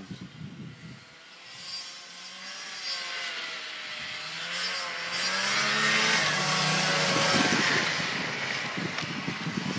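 Two-stroke snowmobile engine approaching across snow, growing louder and changing pitch as the throttle rises and falls, loudest a little past the middle.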